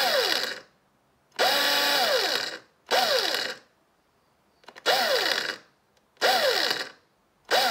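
Xiaomi Mijia electric screwdriver run without a load in six short bursts while held against a wooden tabletop. The table carries the gearbox's churning noise, which sits over a motor whine that peaks and falls away as the motor coasts down after each burst. One burst, just before two seconds in, is held for about a second at a steady pitch.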